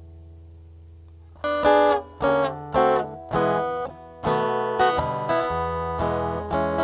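Acoustic guitar: a chord left ringing and fading, then short strummed chords about every half second from about a second and a half in, settling into steady strumming about four seconds in. It is the instrumental lead-in to a song, before the singing starts.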